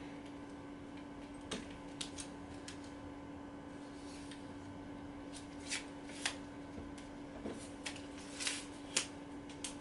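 Aluminium camera tripod being extended by hand: scattered faint clicks, rattles and rubs of its sections and locks, over a steady low hum.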